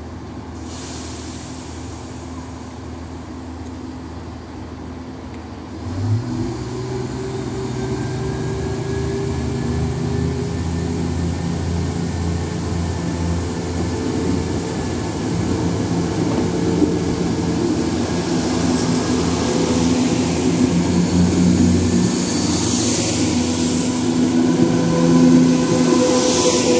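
Class 170 Turbostar diesel multiple unit's underfloor diesel engines idling. About six seconds in they open up to full power with a sudden rise in pitch, and the unit pulls away hard under load. The engine note grows louder as it draws alongside, with rushing wheel and rail noise building near the end.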